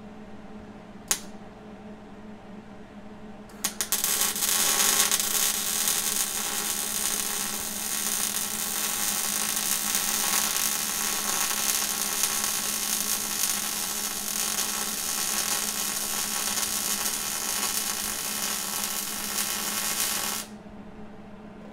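Electric arc welding on steel: after a sharp click about a second in and a few stuttering starts, the arc crackles steadily for about sixteen seconds, then cuts off suddenly. A steady low hum runs underneath.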